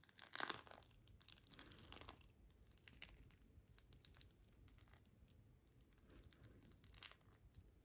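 Gritty sand clay texture paste being scraped and spread over a canvas in a series of short strokes with crackling and clicking. The loudest stroke comes about half a second in.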